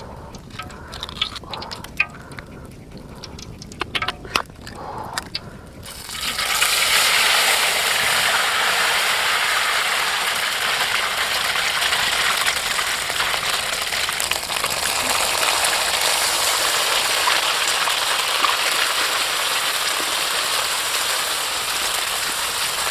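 Fingers picking and breaking open a large eggshell, with small clicks and cracks. About six seconds in, beaten egg hits a hot oiled wok and sizzles loudly and steadily.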